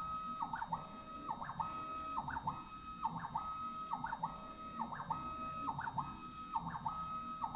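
Stepper motors of a CNC-converted Warco WM18 milling machine driving the ballscrews through a pocketing program with no cutting. They make a steady whine that drops and climbs again at each stop and start of a move, repeating about every three quarters of a second.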